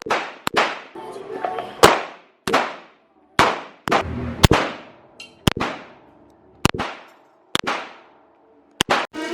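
Handgun shots at an indoor shooting range: about a dozen sharp reports at uneven spacing, some louder and some fainter, each with a short echo off the range walls.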